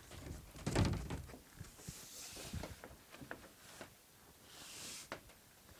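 Handling noise as a thick wall panel is worked into place in a van: a heavy thump about a second in, then scattered knocks and clicks with soft rustling in between.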